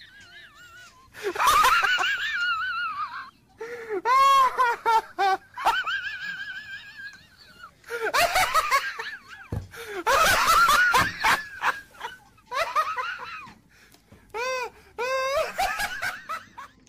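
Loud human laughter in a series of bursts with short pauses between, each burst a run of quick 'ha-ha' pulses.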